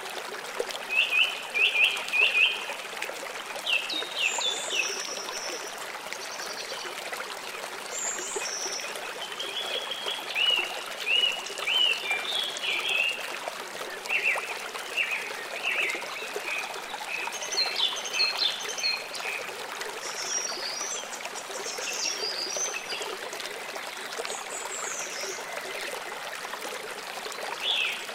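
Steady trickling rush like running water, with groups of short, high, bird-like chirps coming and going, the loudest ones in the first few seconds.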